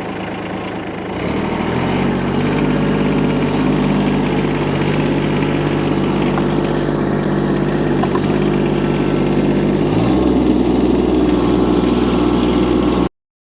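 Mini excavator engine running: it speeds up over the first couple of seconds, then holds a steady note. The note shifts about ten seconds in, and the sound cuts off suddenly near the end.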